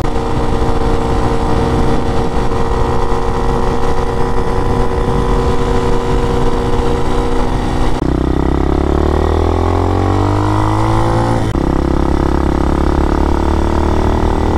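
RPS Hawk DLX 250's single-cylinder, fuel-injected engine running while the motorcycle is ridden: a steady note at cruising speed, then, after a sudden change about eight seconds in, accelerating from low speed with its pitch rising for about three seconds. It then runs steadily again, climbing slowly. The engine is running a custom tune on its Delphi ECU.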